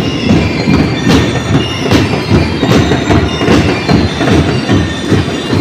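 Drum and lyre corps snare and bass drums playing a fast, dense, steady beat, echoing in a large gymnasium.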